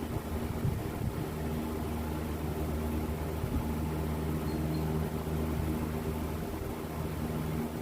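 A machine running steadily with a low, even hum, and a few faint knocks.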